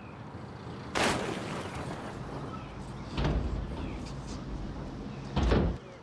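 Southern elephant seal bull shoving against a car, its body thudding into the car's panels three times: a sharp knock about a second in, then two heavier, deeper hits, one around three seconds in and one near the end. The bull is fighting the car as it would a rival male.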